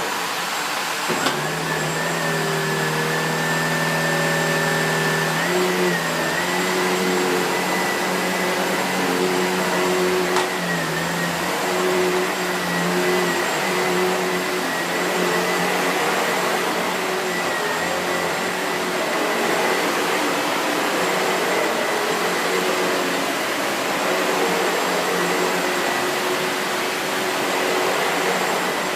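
SEBO Felix bagged upright vacuum cleaner with a 1000-watt suction motor, running steadily. A whine comes in about a second in and holds, wavering slightly in pitch.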